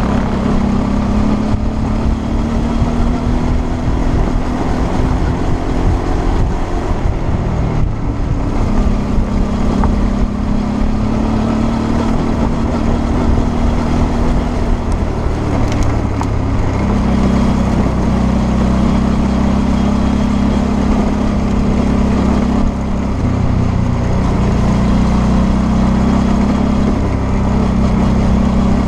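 Suzuki V-Strom 650's V-twin engine pulling along a dirt track, its note climbing slowly through each gear and dropping off briefly three times as the throttle is rolled off and a gear changes. A steady rush of wind and road noise runs underneath.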